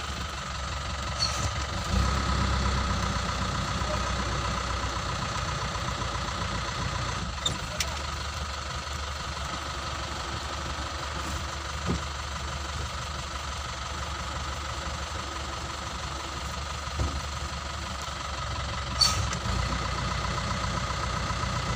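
The vehicle's engine idling steadily, heard from inside the cab, with a few brief knocks, the loudest near the end.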